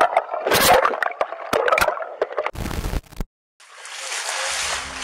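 Water splashing and sloshing in choppy, irregular bursts as someone wades through a lake, for about two and a half seconds. Then comes a short heavy rushing hit, a brief gap, and near the end a music sting for the logo starts.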